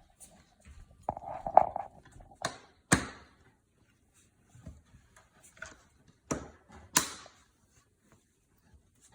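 Scraping and sharp clicks as the locks of a Samsung Bespoke refrigerator's glass door panel are pushed into their pinholes to secure it: a short rub about a second in, then two pairs of hard clicks, each pair about half a second apart.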